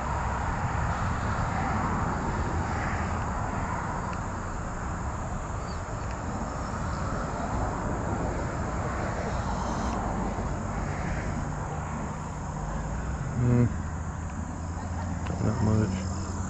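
Outdoor open-air ambience: a steady wash of distant voices and a low hum, with insects chirping faintly. Two brief louder sounds come near the end, about two seconds apart.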